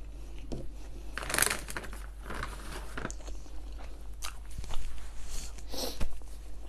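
Close-miked chewing of the last bite of a Burger King cheese triple Whopper: irregular small crunches and mouth clicks, loudest about a second and a half in.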